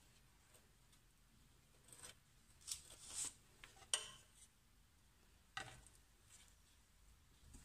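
A metal spoon scraping and clinking against a stainless-steel saucepan as caramel is spooned out: a few faint scrapes and clicks, the sharpest about four seconds in.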